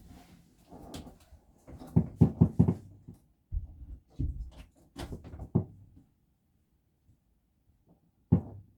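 Tree branches blown by the wind knocking and scratching against a frosted skylight: bursts of rapid knocks about two seconds in and again from about three and a half to six seconds, then a lull and a single knock near the end.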